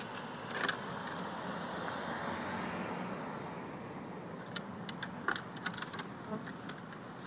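Road traffic passing steadily on a highway, with a sharp clack under a second in and a quick run of clacks about halfway through: the antlers of two bull elk clashing as they spar in the rut.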